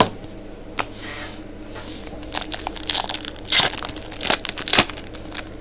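Crinkling and tearing of card packaging, with a brief hiss about a second in and then a run of crinkles between about two and five seconds in, mixed with light clicks of cards being handled.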